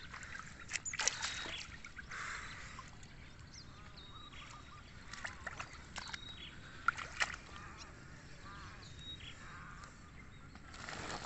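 Handling noises as a large snakehead is taken from shallow swamp water into a woven plastic sack: scattered splashes, knocks and rustling. Faint animal calls sound behind it, with a short high chirp every two to three seconds.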